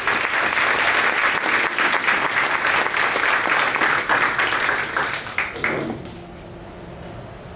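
Audience applauding at the end of an a cappella song. The clapping fades out about six seconds in, leaving a faint steady hum.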